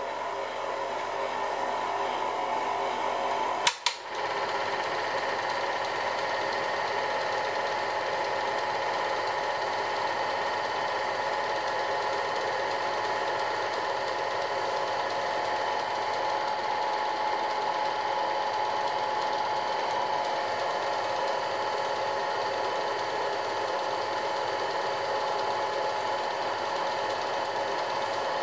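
Film projector running: a steady mechanical whir with several fixed tones, broken by one sharp click about four seconds in.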